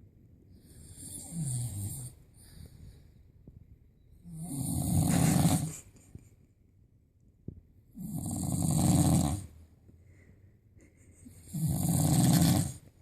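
A person snoring loudly: long, rasping snores repeating about every three and a half seconds, the first one fainter.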